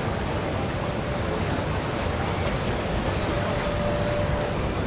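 Steady outdoor wash of boat engines and water, with some wind noise.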